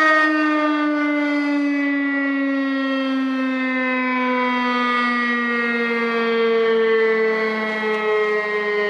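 Federal Signal Thunderbeam electromechanical outdoor warning siren sounding its steady test signal, its pitch falling slowly as it winds down.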